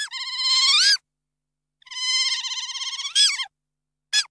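Otter chirping: two high, warbling calls, the first about a second long and the second about a second and a half, each turning upward in pitch near its end, then a brief chirp near the end.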